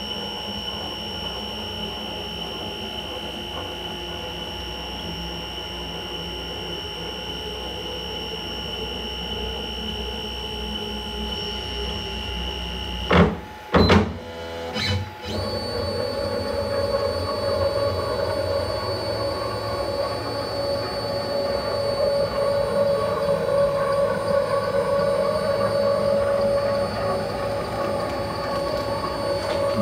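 Stepper motors of an Onefinity X-50 Woodworker CNC router driving its screw-driven axes during homing: a steady high motor whine as the carriage travels, broken by a few loud knocks about thirteen seconds in, then a steady whine at a different pitch as the next axis moves.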